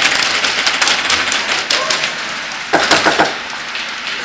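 Airsoft guns firing in a rapid run of sharp clicks and BB impacts, with a louder cluster of knocks about three seconds in.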